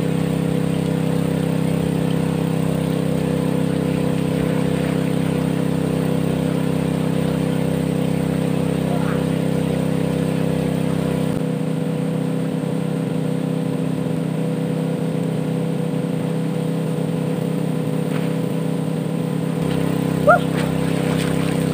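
An engine running steadily at a constant speed, its pitch unchanging throughout.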